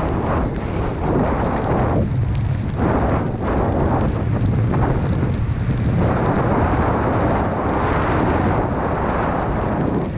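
Wind buffeting the action camera's microphone with a low rumble, over the hiss of a snowboard carving through deep powder, swelling and easing with each turn.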